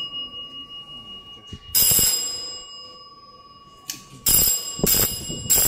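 Electric AC gong bell ringing as its push button is pressed: single metallic dings, each with a long fading ring, one about two seconds in and three in quick succession near the end.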